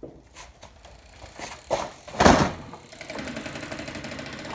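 Metal wrench being fitted against the mower: a few light clicks, then a loud clank a little over two seconds in, followed by a fast, steady ticking.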